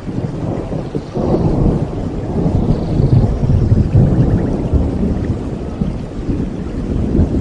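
Rolling thunder rumbling over rain, swelling about a second in and slowly easing off.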